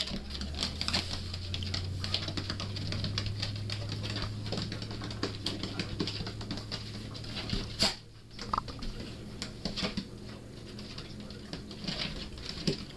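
A dog's claws and a small pig's hooves clicking and scrabbling on a hardwood floor as the two wrestle, with a steady low hum under the first half that stops about eight seconds in.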